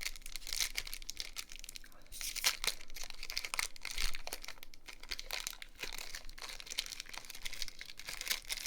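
Crinkling and rustling of a Pokémon trading card booster pack's foil wrapper and cards being handled, a dense run of small irregular crackles.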